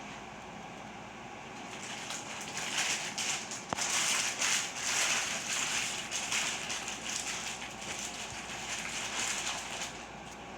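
Irregular crackling, rustling noise that swells about two seconds in and fades near the end, over a steady background hiss.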